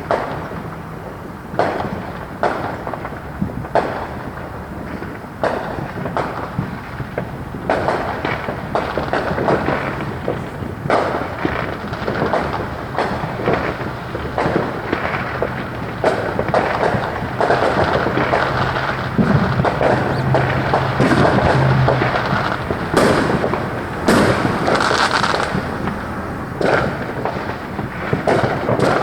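Fireworks exploding: separate bangs every second or two at first, building after about the middle into a dense, rapid barrage of bangs and crackling.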